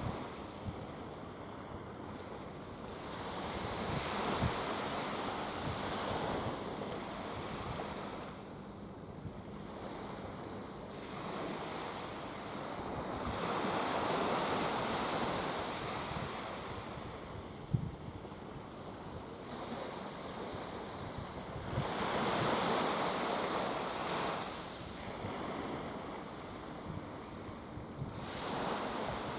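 Sea waves washing in, swelling and fading four times at roughly eight- to nine-second intervals, with wind rumbling on the microphone.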